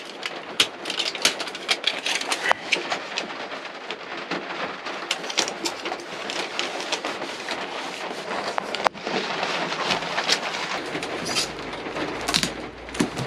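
Aluminium foil tape being peeled off its backing and pressed onto foil-faced insulation board, with irregular crackling and crinkling of the foil.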